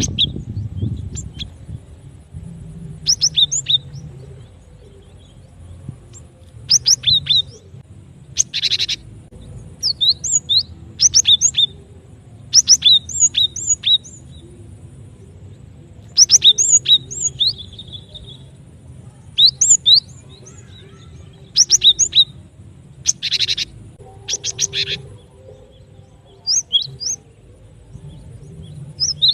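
Cinereous tit (gelatik batu) calling: clusters of sharp, high chirps every second or two, broken by a few quick trilled runs. It is a recording used as a trapper's lure call.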